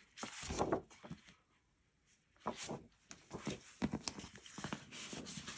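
Sheets of scrapbook paper rustling and sliding against each other as they are handled and spread out, with a short lull about a second and a half in before the rustling picks up again.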